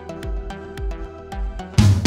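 Background music: held notes over a soft bass beat with light ticking percussion, then a loud drum kit comes in just before the end.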